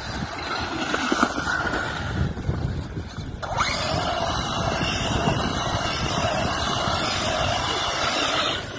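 Traxxas Rustler 4x4 VXL electric RC truck driving on sand: its brushless motor whines and its tyres churn over grit and pebbles. The motor sound gets louder and steadier about three and a half seconds in.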